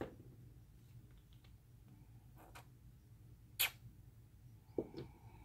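Faint clicks and taps of small plastic food-coloring bottles and their caps being opened and set down on a table, the sharpest click about three and a half seconds in. A brief faint squeak near the end.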